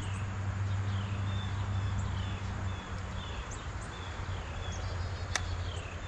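Creekside outdoor ambience: a steady low hum with short, high chirps that fall in pitch, repeating about once or twice a second, and a single sharp click about five seconds in.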